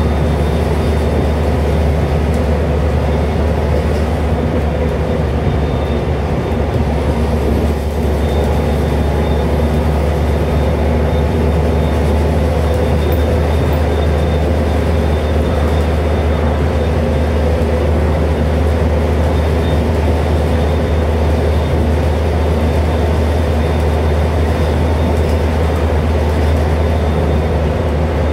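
Scania N230UD double-deck bus heard from inside the passenger saloon while cruising at a steady speed: the five-cylinder 9-litre Scania DC09 diesel and road and tyre noise make a loud, steady low drone with a faint steady whine.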